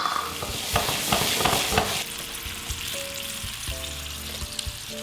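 Spice paste (base genep) frying in a wok just after water has been poured in, sizzling and bubbling. The crackle is densest in the first two seconds, then settles to a lighter simmer, with soft background music underneath.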